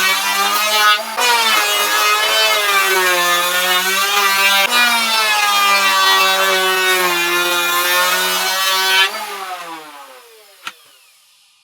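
Power woodworking tool motor running while shaving wood, its pitch wavering slightly under load. Near the end it is switched off and winds down, falling in pitch as it fades, with a single click as it slows.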